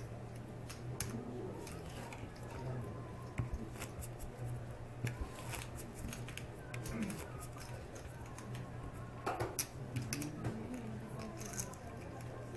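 A poker dealer handling playing cards and clay chips on a felt table: irregular sharp clicks and light clacks, over a steady low hum and faint room chatter.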